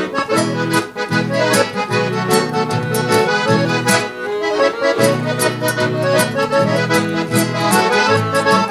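Piano accordion leading a band through the instrumental introduction of a traditional gaúcho song, over a steady beat.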